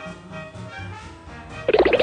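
Soft background music with brass, in a swing or jazz style. A loud buzzy sound comes in near the end.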